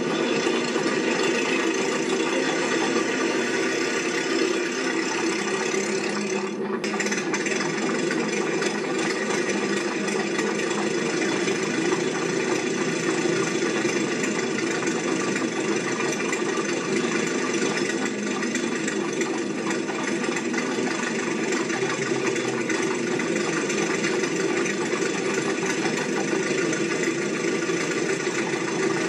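Steady, unchanging mechanical running noise like an engine, with a brief dropout about six and a half seconds in.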